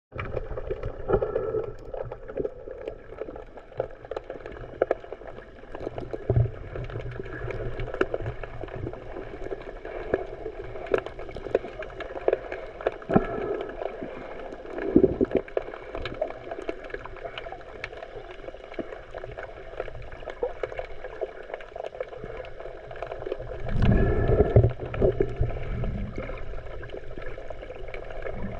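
Underwater ambience as heard by a submerged camera: a steady hiss dotted with many small sharp clicks, with muffled, gurgling surges of water, the strongest about halfway through and again near the end.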